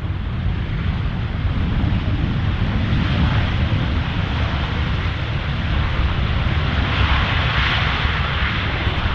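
Jet engines of an Airbus A320 on its landing roll along a wet runway, a loud steady rushing noise that swells brighter about seven seconds in.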